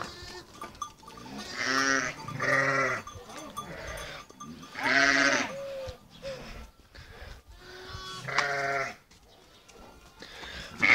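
Sheep bleating four times: two bleats close together about two seconds in, one about five seconds in and one near the end, each with a wavering tremble.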